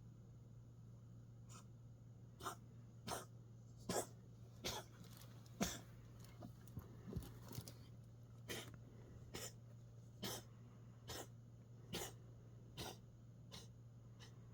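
Domestic cat coughing in a run of about a dozen short coughs, roughly one a second, starting a couple of seconds in and stopping shortly before the end, over a steady low hum.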